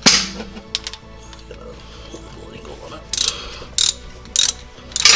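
Socket ratchet clicking in several short bursts as a 17 mm bolt on the rear differential cover is worked loose.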